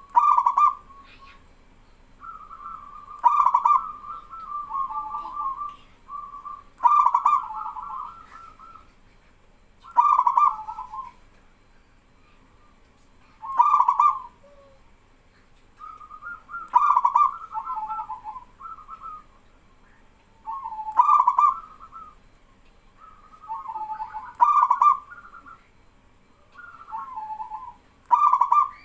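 Male zebra dove (perkutut) cooing in repeated phrases, about one every three and a half seconds, each starting with a loud note and running into a short rolling coo.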